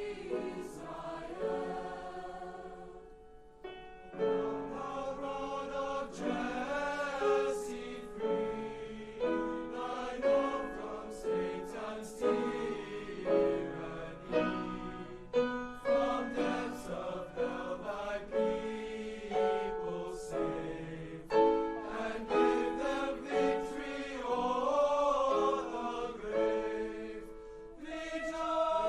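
A student choir singing a Christmas piece in several-part harmony, with a short break about three seconds in.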